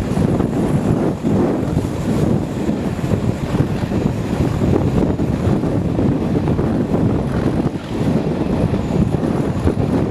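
Class 37 diesel locomotive's English Electric V12 engine running steadily as it hauls the train, heard from an open carriage window with wind buffeting the microphone.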